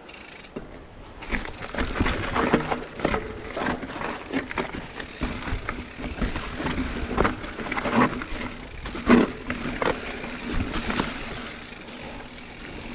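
Mountain bike being ridden over rough trail: irregular knocks, clanks and rattles of the bike and its tyres, coming thick and fast from about a second in.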